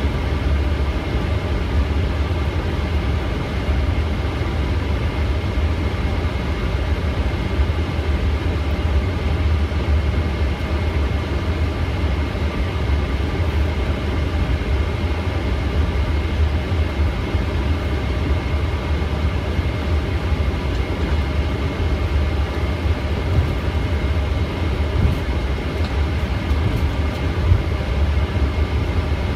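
Steady flight-deck noise of a Boeing 777 taxiing: a constant low rumble with a faint, steady high whine over it.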